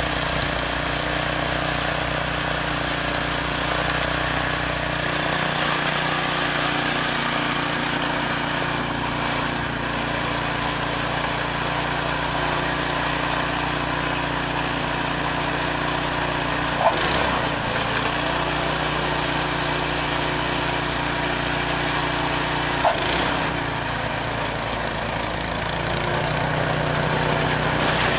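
Small gasoline snowblower engine running steadily, with two sharp knocks about six seconds apart.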